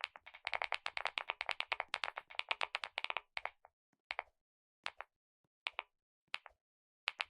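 Typing on a computer keyboard: a fast run of keystrokes for about three seconds, then a few scattered single key presses, with fast typing starting again near the end.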